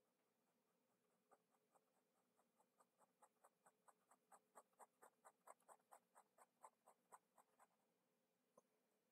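Faint scratching of a ballpoint pen on sketchbook paper: a quick run of short hatching strokes, about four a second. It starts about a second in and stops near the end, with one last stroke after a pause.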